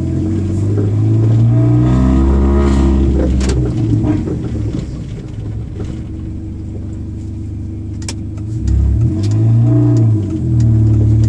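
Exhaust note of a supercharged R53 Mini Cooper S through a 2.5-inch exhaust with a Flowmaster Super 10 muffler and no catalytic converter or resonator, heard from inside the cabin with the passenger window half down. The engine pulls with a loud drone, eases off about four seconds in and builds again near the end. It is running in limp mode because of vacuum leaks, so it accelerates slowly.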